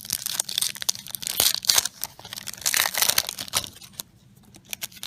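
A trading card booster pack's wrapper being torn open and crinkled by hand: a dense run of sharp rips and crackles that eases off near the end.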